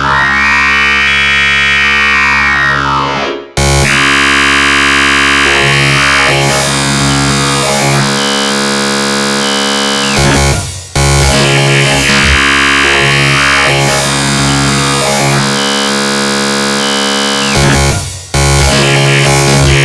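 Dark synthesized MIDI ringtone: a dense loop of loud, sustained synth tones that cuts out briefly and starts over about every seven seconds.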